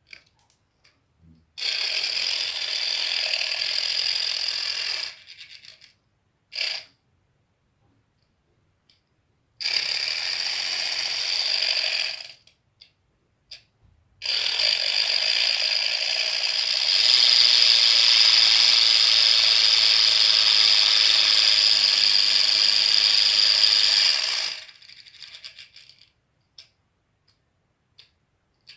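A small motor-driven gear mechanism whirring in three runs: a few seconds, then a shorter burst, then a long run of about ten seconds that gets louder partway through. It carries a steady high whine.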